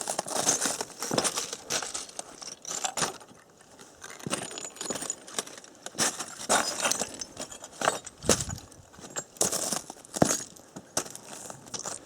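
Footsteps on loose obsidian rubble: irregular crunches and glassy clinks of rock fragments shifting underfoot.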